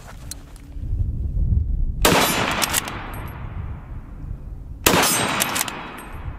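Two rifle shots from a 1901 Mauser Gewehr 98 in 8mm Mauser, the first about two seconds in and the second nearly three seconds later, each echoing and fading away over a second or more. Each shot is followed by a few quick metallic clicks as the bolt is worked to chamber the next round.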